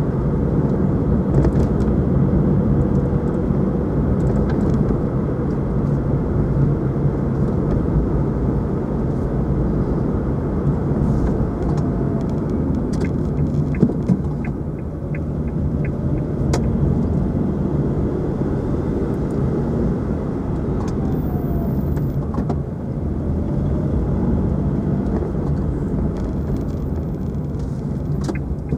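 Engine and tyre noise heard inside a moving car's cabin: a steady low rumble, a little quieter from about halfway through.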